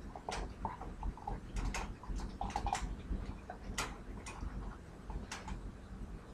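Metal wire dog crate clinking and rattling in irregular sharp clicks, a few a second, as two dogs nose and mouth at its bars.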